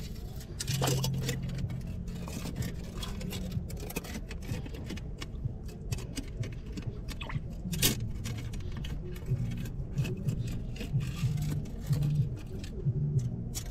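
Steel crab hook rod scraping and clicking against stones and shells inside a rock crab burrow as it is worked in to find and drag out a crab, an irregular run of sharp clicks and scrapes.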